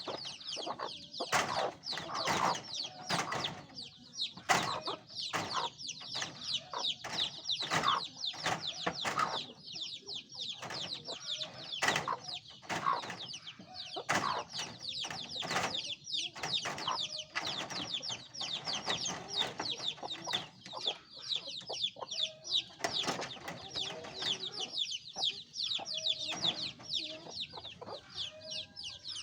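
A group of chicks peeping continuously, many high, falling chirps a second, with the lower clucks of adult chickens mixed in now and then.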